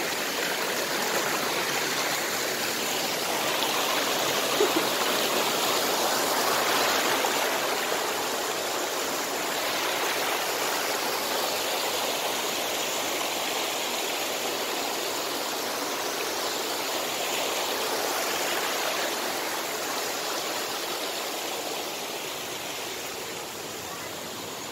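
Mountain stream rushing over rocks in small cascades: a steady hiss of running water, a little louder several seconds in and easing slightly near the end.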